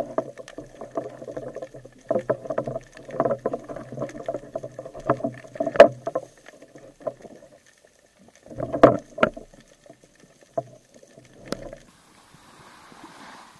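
Underwater handling noise picked up through the camera housing: a rough rumble full of clicks and rattles as a spearfisher works the speargun along the rocks, with two sharp knocks around the middle. Near the end it gives way to a faint steady hiss of the sea surface.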